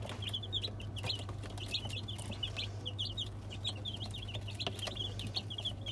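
A group of young chicks peeping constantly, many short high-pitched peeps a second overlapping one another, over a steady low hum.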